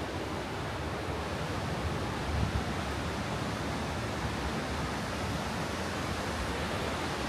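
Steady rushing noise of wind on the camera microphone, with an uneven rumble in the bass from the gusts.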